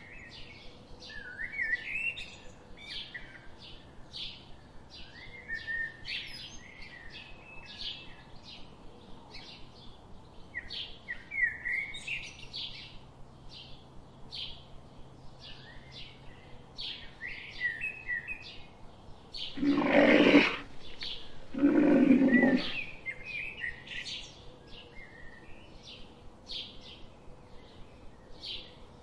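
Small birds chirping and twittering continually. About two-thirds of the way through, two loud sounds, each about a second long and two seconds apart, stand out over the birdsong.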